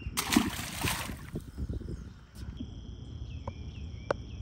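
A loud, noisy rush lasting about a second at the start, then crickets chirring steadily at a high pitch, with a few faint ticks.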